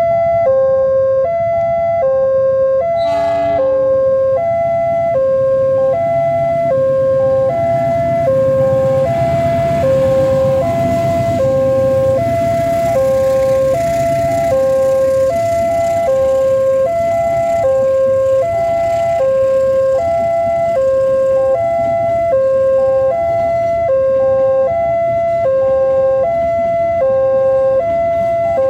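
Electronic railway level-crossing alarm sounding a two-tone chime that alternates steadily over and over. A short locomotive horn blast comes about three seconds in, and a passenger train's wheels rumble low as it passes over the crossing.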